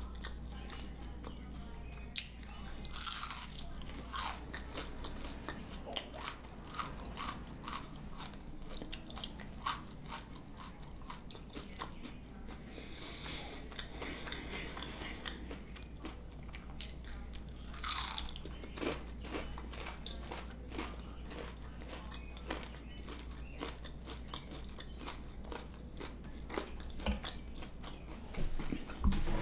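Close-up chewing and biting of crunchy fried onion rings: irregular crisp crunches and mouth sounds over a low steady hum.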